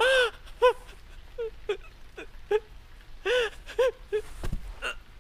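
A young man sobbing: about a dozen short, choked cries in a row, each rising and falling in pitch. A single dull thump comes near the end.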